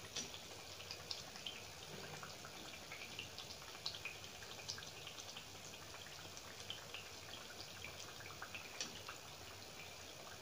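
Hot sunflower oil crackling and spitting around a small neyyappam, a rice and jaggery fritter, as it deep-fries in a small pan: faint, irregular little pops and ticks over a soft hiss.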